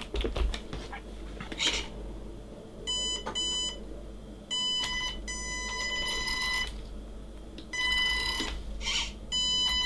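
RC transmitter beeping as its buttons are pressed to set the steering endpoints. About six electronic beeps, some short and some over a second long, with a few light clicks in between.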